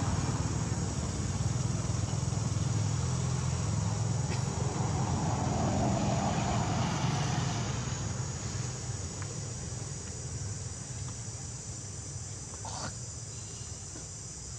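Steady high insect buzzing over a low rumble, the rumble easing off after about eight seconds, with a couple of faint clicks.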